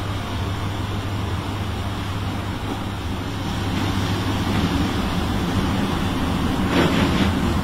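Cab noise of a moving Class 7E electric locomotive: a steady low hum over running rumble, growing slightly louder after about halfway, with a couple of clacks near the end.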